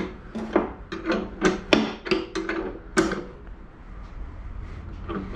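Metal clanks and knocks as a Mul T Bar rod-holder frame is shifted and set into position on a boat deck, two or three a second with a brief ring after each, easing to quieter rubbing after about three seconds.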